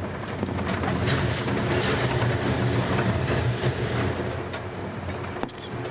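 Amtrak Capitol Limited passenger train running along the track: a steady low rumble with occasional sharp clicks of wheels on the rails. It grows louder about a second in and eases off near the end.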